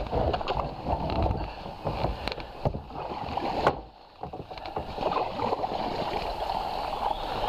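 Paddles of a two-person canoe stroking and dipping through shallow river water, with sharp knocks every so often, the loudest a little past the middle.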